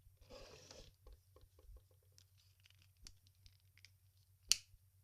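Handling of a knife: a brief rustle, then a quick run of small clicks and scattered ticks, with one sharp click about four and a half seconds in.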